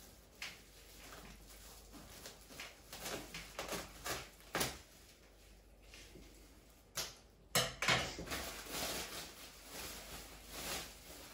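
Scissors snipping and clicking through packing tape on a woven sack wrapping, with a couple of louder sharp knocks just past halfway, then the sack rustling as it is pulled open.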